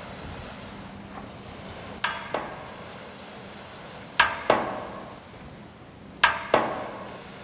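Metal being struck sharply six times, in three pairs about two seconds apart, each strike ringing briefly before it fades.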